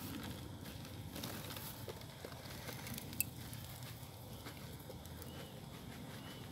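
Faint crinkling of a thin black plastic nursery bag being pulled off a root ball, with loose soil crackling and pattering into the pot, and one sharper click about three seconds in.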